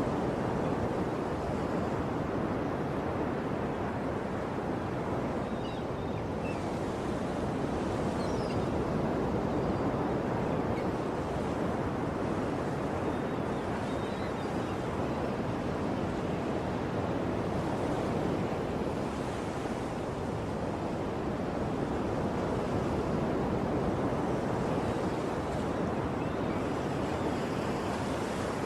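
Ocean surf washing in a steady rush that swells and eases every several seconds as waves break, with a few faint high chirps now and then.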